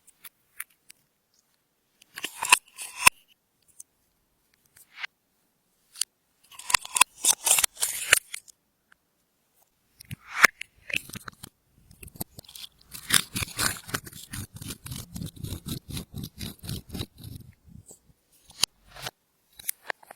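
Clear slime being squeezed and folded by hand, making bursts of sticky clicks and crackles. The longest burst, in the second half, is a fast run of small pops lasting several seconds.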